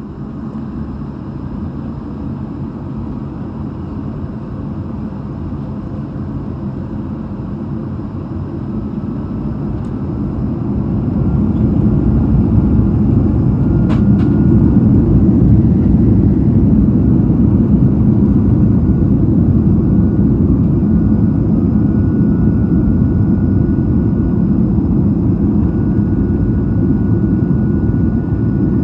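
Airbus A220's Pratt & Whitney PW1500G geared turbofan engines heard from inside the cabin: a steady deep rumble that grows louder about ten seconds in as the engines come up to takeoff power. A single sharp click comes about fourteen seconds in.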